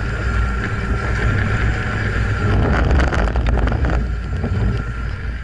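Lifted Suzuki Sidekick's engine running steadily as it drives over packed snow, with wind buffeting the outside-mounted microphone. A patch of rattling knocks comes about halfway through.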